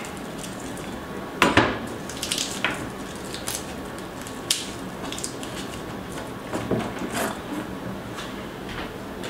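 Irregular knocks and clinks of kitchen utensils and crockery while garlic cloves are crushed, the loudest knock about one and a half seconds in.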